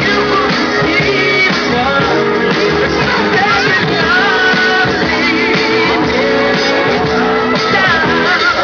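A song playing: a singing voice over instruments, steady throughout.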